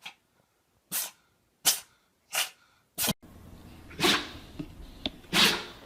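Dog sneezing in quick succession: five short sharp sneezes about two-thirds of a second apart, then two longer sneezes with a small snort between them.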